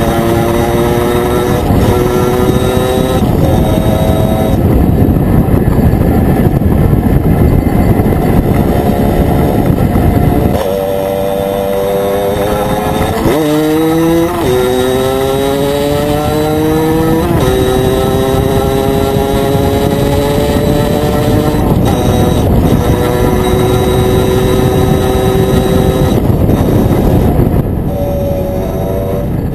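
Aprilia Pegaso 125's two-stroke single-cylinder Rotax 123 engine pulling the bike along. Its pitch climbs steadily within each gear and drops back at each of several gear changes. Heavy wind rush on the microphone runs underneath.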